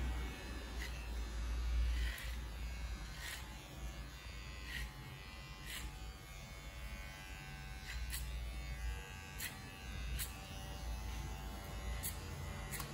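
Cordless electric hair clipper buzzing steadily as it cuts hair over a comb, with short sharp ticks about once a second.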